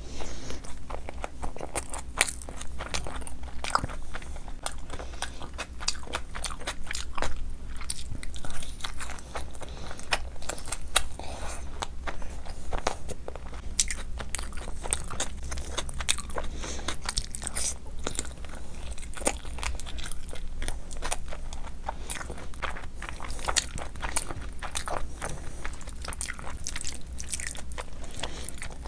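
Close-up chewing and mouth smacking, a stream of irregular wet clicks, as a person eats with their hand. Fingers squelch through soft khichdi and curry on a steel plate between mouthfuls.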